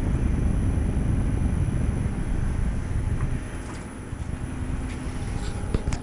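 Comfortmaker SoftSound air-conditioner condensing unit running in cooling mode, its condenser fan and compressor giving a steady low rumble and rush of air. It eases slightly about three and a half seconds in, and there is a light click near the end.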